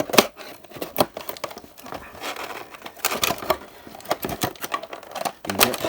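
Plastic packaging being pulled off and handled: crinkling and crackling with many quick clicks and taps.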